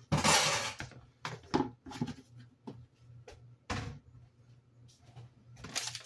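Kitchen handling noises: a loud rustling clatter about half a second long at the start, then a few short knocks and rustles. Just before the end comes a rasping rustle as the paper wrapper is peeled off a can of refrigerated biscuits.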